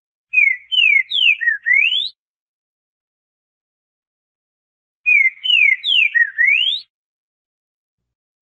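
Green-winged saltator (trinca-ferro) singing: two identical phrases of five clear whistled notes, each phrase lasting under two seconds. In each phrase the first four notes slide downward and the last rises sharply. The second phrase comes about five seconds in.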